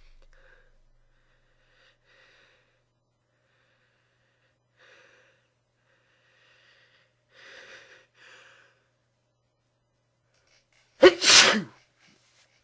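A person sneezing into a handkerchief: several faint breaths as the sneeze builds, then one loud sneeze near the end.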